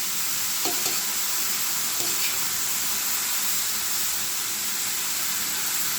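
Grated ash gourd and onions frying in oil in a large pot: a steady sizzle, with a couple of faint clicks.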